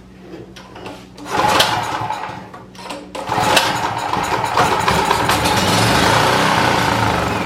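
Champion 4000-watt generator's small engine cranked on starting fluid. It catches a little over a second in, falters around three seconds, then runs for several seconds. It runs on the fluid, the sign of a fuel problem.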